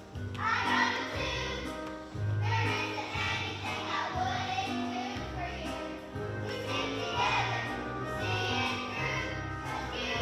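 A song with a group of voices singing in phrases over instrumental backing with held bass notes.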